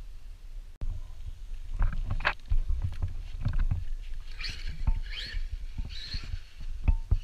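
Traxxas Maxx RC monster truck driving: its brushless electric motor whines up and down in three short bursts near the middle, over a low rumble with scattered knocks.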